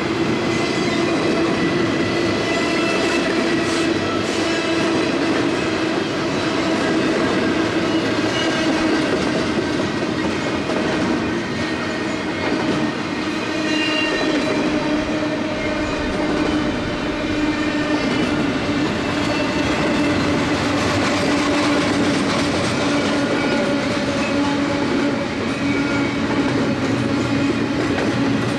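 CSX double-stack intermodal freight train rolling steadily past: continuous rumble and clatter of container cars on the rails, with a steady metallic squealing ring from the wheels.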